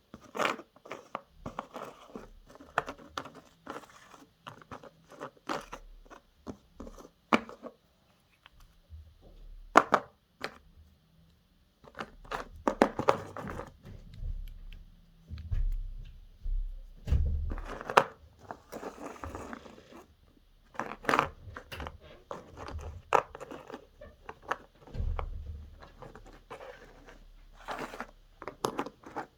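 Toys being handled: irregular clicks, clacks and knocks of hard pieces, with some rustling and a few dull thumps.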